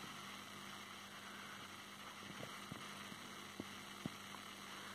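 Quiet room tone: a low steady electrical hum with a few faint ticks.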